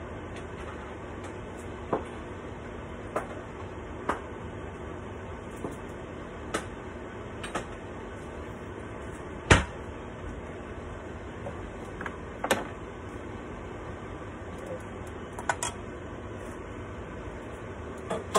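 Ground beef simmering in a covered stainless-steel pot with a glass lid: a steady hiss with a dozen or so scattered sharp clicks and pops, the loudest about halfway through.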